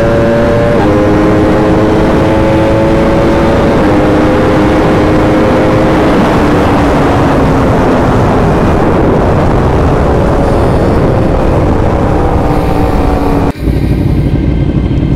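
Sport motorcycle engine at high revs under hard acceleration, its pitch climbing and then dropping sharply at two upshifts, one about a second in and one about four seconds in. The pitch then falls away as the throttle is rolled off, over a heavy rushing noise. The sound changes abruptly shortly before the end.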